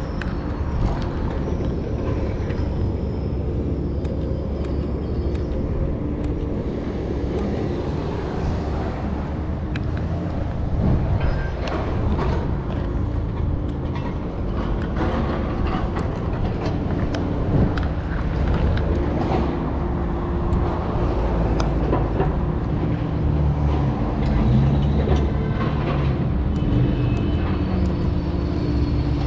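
Downtown street traffic: vehicle engines running in a steady deep rumble, with scattered short clicks.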